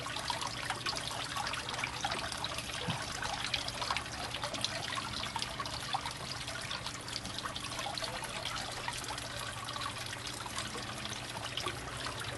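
Steady trickle of water running into a small pond, with small splashes and stirring as a hand searches through the water.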